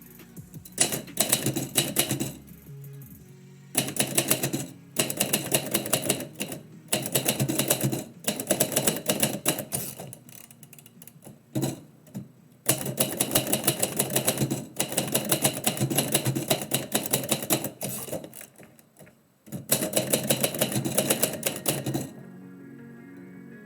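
Typewriter keys striking in quick runs of a few seconds each, with short pauses between the runs, over quiet background music. The typing stops near the end, leaving only the music.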